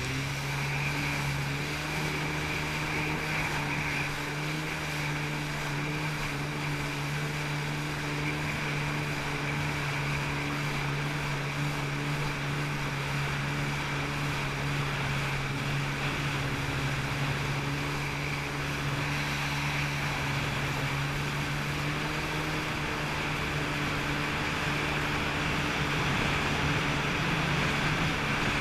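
Jet ski engine running at a steady cruising speed, one even drone, with wind and water rushing past.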